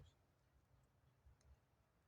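Near silence, with two faint clicks about a second and a half in.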